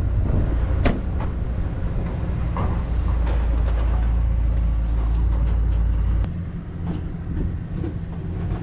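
Truck on the road, heard from inside the cab: a steady low rumble of engine and road noise with a few sharp clicks and rattles. The rumble eases about six seconds in.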